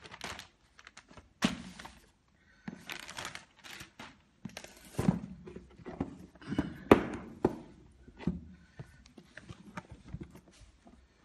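A plastic courier bag rustling and crinkling as a cardboard product box is pulled out of it and handled, in irregular bursts with several knocks of the box. The sharpest knock comes about seven seconds in.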